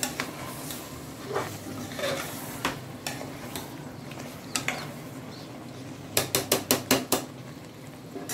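A metal spoon clinking and scraping against a pressure cooker of simmering chicken, with scattered knocks and then a quick run of about seven taps shortly before the end. A low simmer sits underneath.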